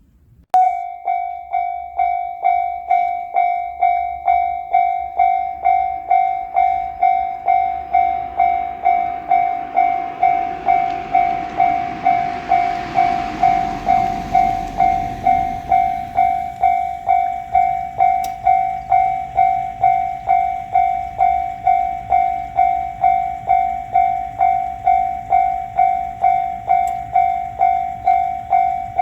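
Japanese railway level-crossing warning bell starting up and ringing in an even, steady ding about twice a second. In the middle a rushing noise swells and then fades under the bell.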